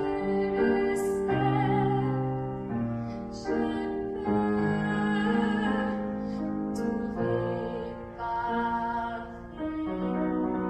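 Solo female voice singing a slow song in French, holding long notes with vibrato, with piano accompaniment.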